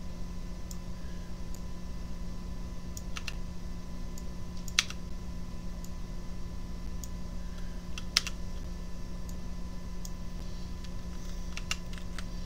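A handful of sharp, scattered clicks from a computer keyboard and mouse, the loudest about five and eight seconds in and a quick cluster near the end, over a steady low electrical hum with a faint high tone.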